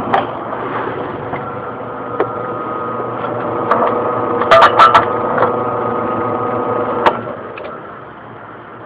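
Benchtop drill press running and drilling through a hard drive, with a cluster of sharp metallic clicks about halfway through. The motor sound drops away near the end.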